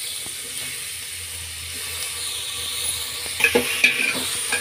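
Onions and chopped tomatoes frying in oil in a metal pot, a steady sizzle. From about three and a half seconds in, a spoon scrapes and knocks against the pot several times as the tomatoes are stirred in.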